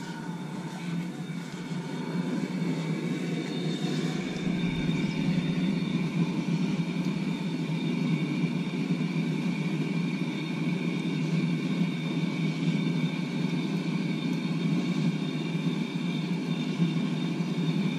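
Propane gas log assist burner in an offset smoker's firebox, burning with a steady low rush of gas flame that grows a little louder over the first few seconds.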